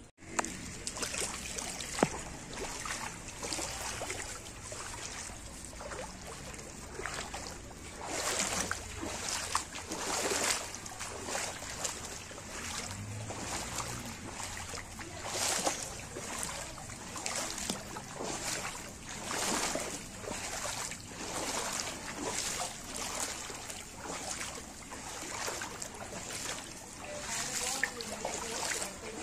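Someone wading through floodwater, the water sloshing and swishing in irregular surges every second or two with each stride.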